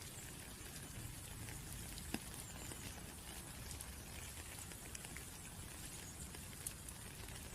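Rain falling steadily as a soft hiss, with many individual drops pattering and ticking on a surface. Two sharper drops stand out, about two seconds in and again near the end.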